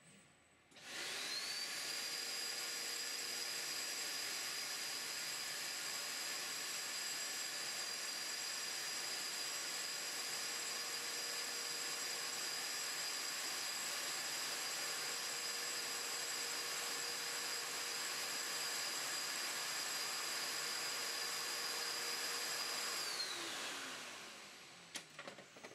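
Canister vacuum cleaner starting about a second in with a rising whine. It runs steadily with a rushing suction noise and a high whine, pulling residual 3D-printing powder through the hose nozzle on the robot arm, then winds down with a falling whine near the end.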